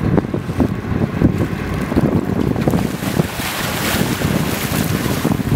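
Wind buffeting the microphone with a low rumble, and from about three seconds in a large bluefin tuna thrashing at the surface beside the boat, a rushing splash of churned water.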